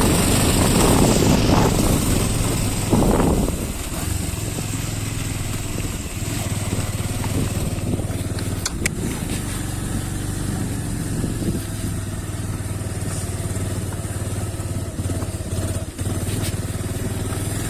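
Motorcycle engine running steadily at low speed on a rough trail, louder for the first few seconds and then settling to an even hum. Two or three sharp knocks from the bike over bumps break in later.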